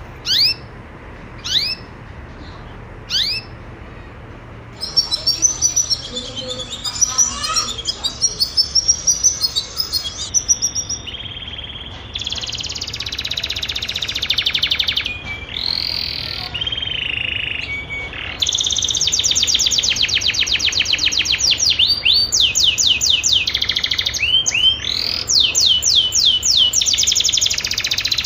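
Domestic canary hen in breeding condition calling: a few separate down-slurred call notes at first, then rapid chirping that runs into fast rolling trills, louder in the second half.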